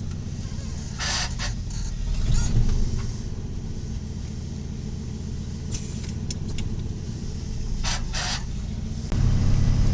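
The 1986 Ford F250's 351 Windsor V8 runs steadily as the truck drives, with a few short hissing noises over it. The engine rumble gets suddenly louder about nine seconds in.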